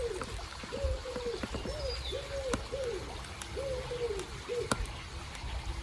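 A dove cooing over and over in a run of short, low arched notes, with another bird giving a brief high descending call about two seconds in. A few faint clicks sit beneath.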